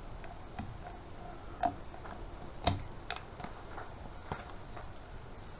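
Irregular light clicks and taps of a tool knocking against small metal parts and the container while fishing for an unseen part in a cleaning bath, a few of them ringing briefly. The loudest taps come about one and a half and two and a half seconds in.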